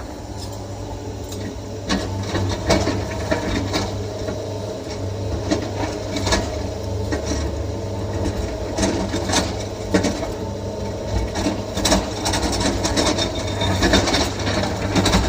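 Excavator's diesel engine running steadily, with irregular clicks and knocks on top, as of rock and metal clattering while it loads.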